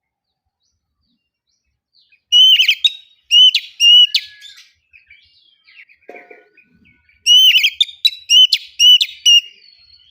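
Oriental magpie-robin (kacer) singing: after a couple of seconds of quiet, two loud phrases of three or four clear whistled notes mixed with sharp clicking sounds, with softer chatter between them.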